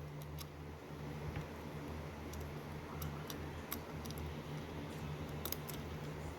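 Faint, scattered metallic ticks as a long Allen wrench turns the grip screw up into an AR-15 lower receiver, about half a dozen clicks over a steady low hum.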